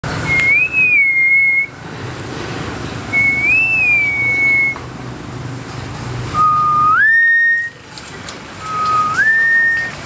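Common hill myna whistling four clear whistles. The first two hold one pitch with a small rise and fall in the middle. The last two step up from a lower note to a higher one.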